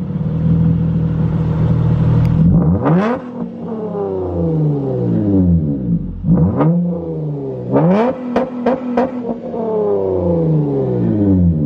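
2010 Acura TL's 3.5-litre V6 through an open, straight-through exhaust (downpipe, a cat cut off, glass pack in place of the mufflers, no tune). It idles, then is revved three times, each rev sinking back slowly. About eight seconds in comes a quick run of sharp pops, the exhaust's burble and pops.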